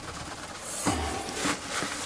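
Runny self-levelling compound sliding out of a tipped bucket and slopping onto the floor, with a couple of soft knocks from the bucket about a second in.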